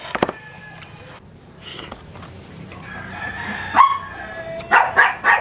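A rooster crowing, loudest a little past the middle and again in short bursts near the end. A couple of sharp clicks come at the very start.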